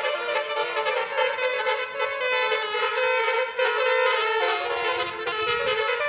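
Basuri musical air horns on parked tour buses playing a tune, the notes changing in quick succession.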